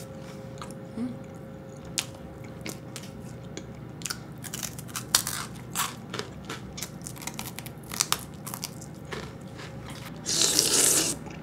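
Close-miked chewing of a corn dog's pork sausage: wet mouth sounds with many short, sharp crunchy clicks, thickest in the middle. Near the end comes a loud hiss lasting about a second.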